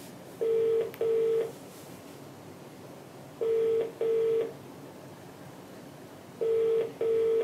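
Australian telephone ringback tone over a desk phone's speaker: three double rings about three seconds apart, each a pair of short, steady, low tones. An outgoing call is ringing, not yet answered.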